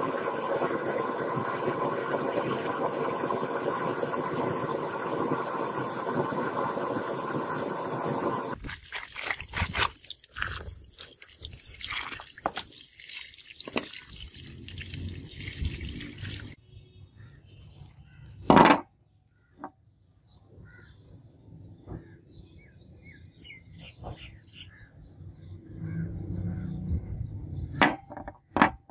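Steady rushing noise of a metal-casting furnace while molten metal is poured into tin-can moulds. This gives way to irregular splashing as a fresh casting is rinsed under running water. There is one loud sharp knock, then small cast-metal pieces are set down and handled on a wooden table with light clinks.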